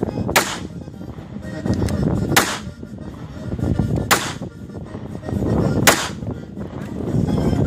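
A pistol fired four times in slow aimed shots about two seconds apart, each a sharp crack.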